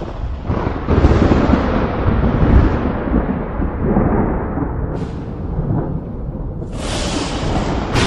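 Thunder rumbling in long rolls, with a loud surge about a second in and sharper cracks about five and seven seconds in.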